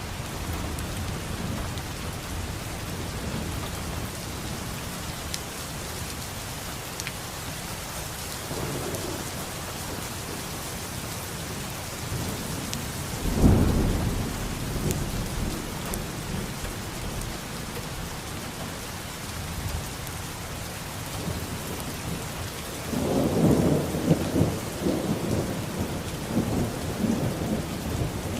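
Steady rain falling, with thunder: one sharp clap about halfway through that rumbles away over a couple of seconds, and a longer rolling peal with several loud surges near the end.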